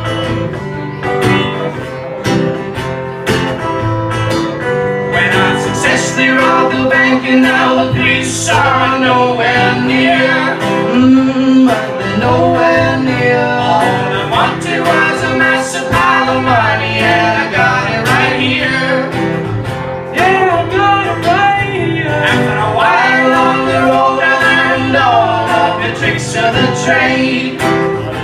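Live acoustic band music: an acoustic guitar strummed steadily, with a voice singing a melody over it from about five seconds in, breaking off briefly around twenty seconds and coming back.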